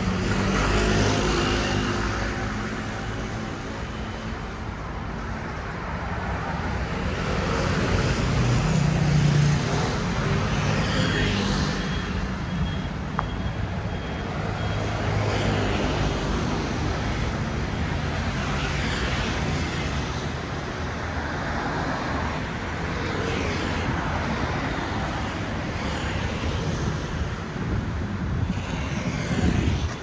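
City road traffic: cars and scooters passing one after another over a steady low engine hum, swelling loudest about eight to ten seconds in.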